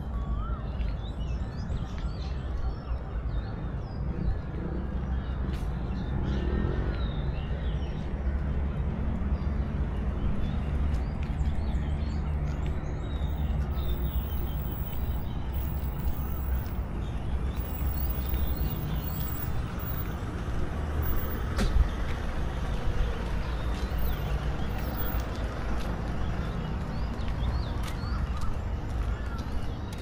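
Steady low rumble of motor traffic, with birds chirping over it now and then.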